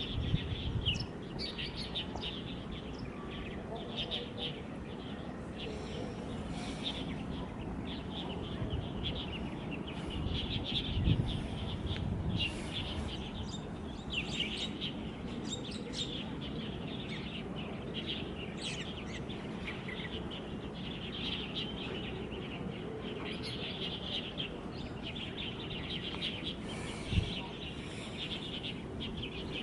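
Small birds chirping busily and continuously over a steady low background hum of the surroundings, with one short knock near the end.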